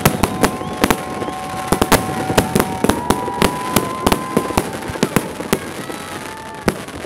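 Fireworks display: aerial shells bursting in rapid, irregular bangs and crackling pops, with a few long steady tones over them.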